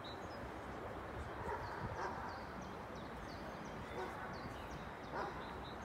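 Small birds chirping repeatedly in the trees, short high chirps over a steady low outdoor rumble.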